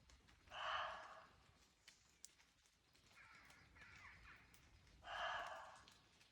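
Roe deer barking: two short, harsh barks about four and a half seconds apart.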